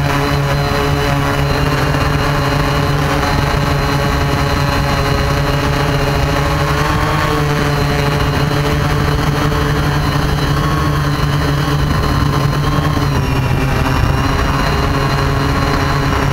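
Camera drone's electric motors and propellers humming steadily close to the onboard microphone as it lifts off and climbs. The pitch shifts slightly a couple of times.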